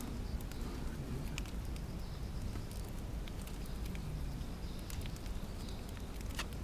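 Plastic colour sorting machine running: a steady low hum with scattered sharp clicks and ticks of small plastic pieces.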